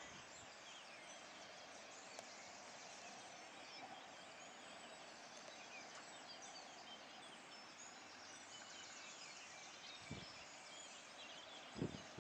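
Near silence: faint outdoor ambience, a steady hiss with many faint high bird chirps, and a brief low bump near the end.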